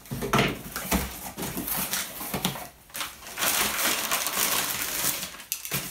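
Cardboard box flaps being opened and wrapping paper crinkling and rustling as an item is unwrapped by hand, with a brief pause a little before three seconds in.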